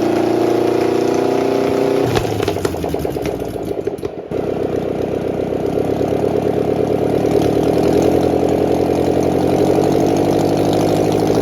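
Rebuilt boat engine running steadily at idle. Its note changes about two seconds in and dips briefly just after four seconds, then it settles into an even, pulsing idle.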